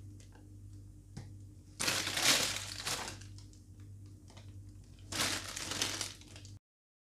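Plastic bag crinkling as it is handled around a piping bag of cream, in two spells of about a second each. The sound cuts off suddenly near the end.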